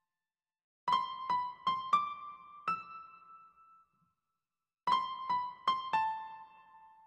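Background music: a piano-like keyboard plays a short run of five ringing notes, then after a pause a similar run of four.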